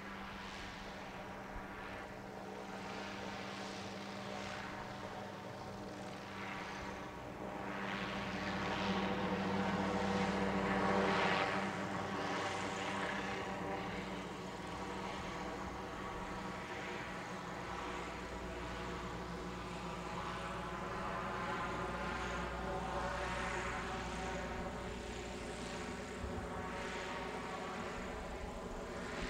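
Goodyear's Wingfoot One, a Zeppelin NT airship, flying overhead: the steady drone of its propeller engines, a hum of several held pitches. It swells to its loudest around ten seconds in as the airship passes close, then eases off to a steady, lower drone.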